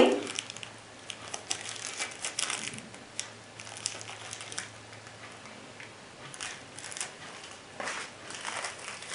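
Small clear plastic bag crinkling and rustling in the hands, with scattered light ticks, as a packaged battery is handled.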